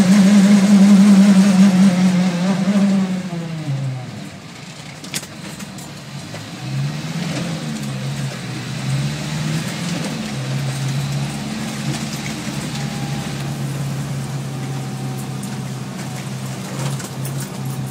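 Mitsubishi Jeep running with a loud pitched hum, the unusual noise the owner is recording. The hum drops in pitch and loudness about three to four seconds in, wavers up and down, then settles to a steady lower tone.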